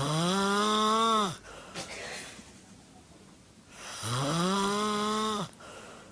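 A person snoring loudly with a humming, pitched tone: two long snores about four seconds apart, each rising in pitch at the start and then holding. A softer breath comes between them.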